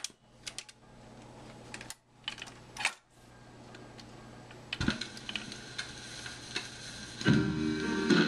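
Record changer on a 1954 Pilot portable hi-fi cycling: a run of sharp mechanical clicks and clunks as the record drops and the tonearm swings over. About five seconds in, the needle sets down with a thump and a light crackle from the groove. Music starts playing through the set near the end.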